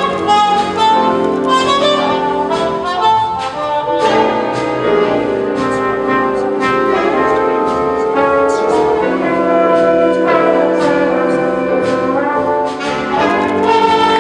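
Jazz big band playing: saxophones, trumpets and trombones in full ensemble over upright bass and piano, with a steady rhythm of drum and cymbal hits.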